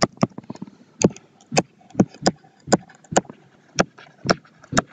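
Pen stylus clicking against a tablet's writing surface while handwriting: about a dozen sharp, irregular clicks.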